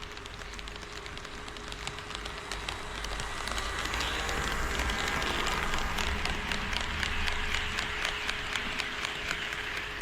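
HO scale model train running on KATO Unitrack, a rumble and a rapid run of clicking from the wheels on the track. It grows louder from about three seconds in and stays loud until it drops off at the very end.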